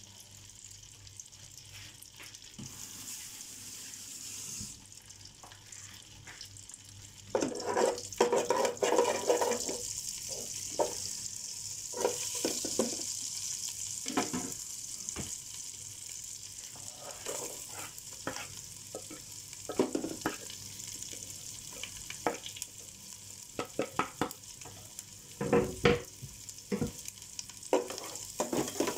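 Minced garlic sizzling steadily in a large metal pot, with a metal slotted spoon stirring and scraping against the pot. The clatter of the spoon is heaviest about a quarter of the way in and again near the end.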